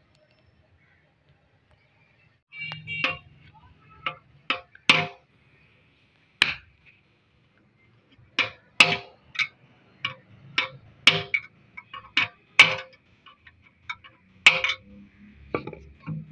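Wooden mallet striking a bent steel rod pushed through the filler neck of a Honda CD 70 motorcycle's steel fuel tank, knocking a dent out from inside. About fifteen sharp knocks come at irregular intervals, starting about three seconds in.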